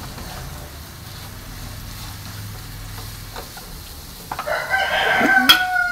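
Spatula stirring an onion and tomato masala in a nonstick kadai, with a faint sizzle of frying. About four seconds in, a rooster crows: one long call, falling slightly in pitch, which is the loudest sound.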